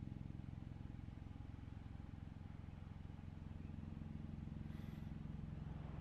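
A steady low mechanical hum, like an engine running, with a brief faint high-pitched sound about five seconds in.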